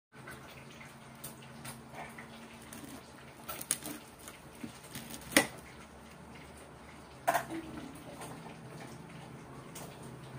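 Fork and knife cutting through breaded fried chicken breast on a plate: a handful of sharp clinks of cutlery against the plate, the loudest about halfway through, over a faint steady hum.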